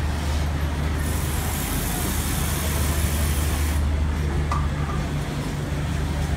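Garment factory floor din: many industrial sewing machines running together over a steady low motor hum, with a brighter hiss between about one and four seconds in.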